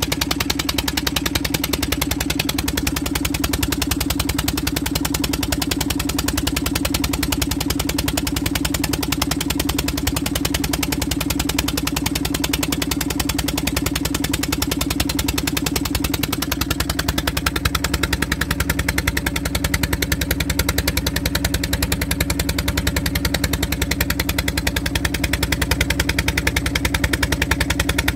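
Boat engine running steadily under way, a fast, even engine beat with a strong low hum, getting a little louder about halfway through.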